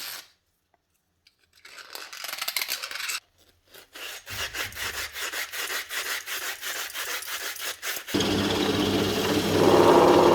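Hand deburring tool scraping the edges of drilled holes in a plexiglass (acrylic) router base plate, in quick repeated strokes. It gets louder and more chattering near the end.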